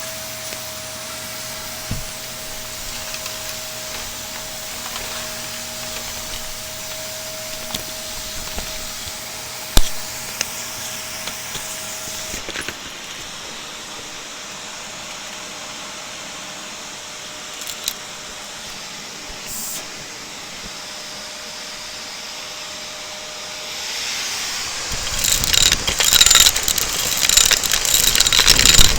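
Shark vacuum cleaner running steadily, with a few scattered clicks of debris going up the hose. Over the last few seconds it gets louder with a dense crackling rattle as it sucks up crunchy debris.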